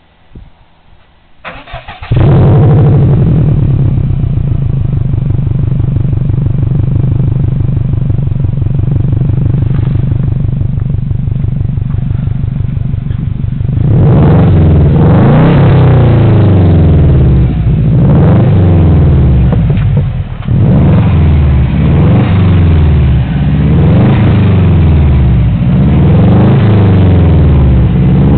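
A 2002 Subaru WRX's turbocharged flat-four, breathing through a catless turbo-back exhaust with a fartcan muffler, cranks and starts about two seconds in and settles into a steady idle. From about halfway it is revved up and dropped back again and again, roughly every second and a half.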